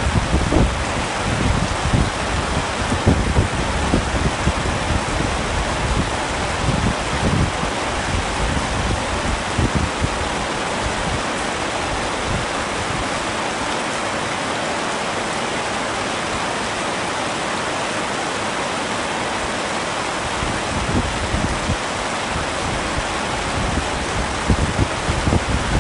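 Heavy rain falling steadily on a tent, an even hiss. An irregular low rumble comes and goes through the first ten seconds or so and returns near the end.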